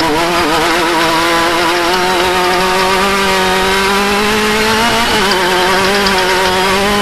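Off-road race vehicle's engine running hard at steady high revs, its pitch wavering, with a brief dip about five seconds in before it climbs back up.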